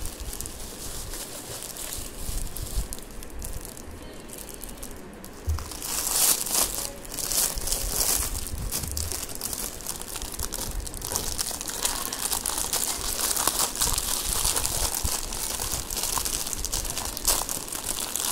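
Bubble wrap and clear plastic packaging crinkling and rustling as hands unwrap it. It is quieter for the first few seconds, then louder and busier from about six seconds in.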